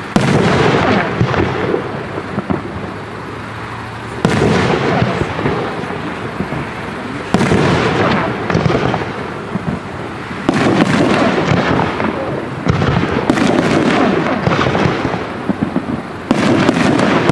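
Aerial firework shells bursting in a series of about seven sharp bangs a few seconds apart. Each bang is followed by several seconds of dense crackling and echo that dies away.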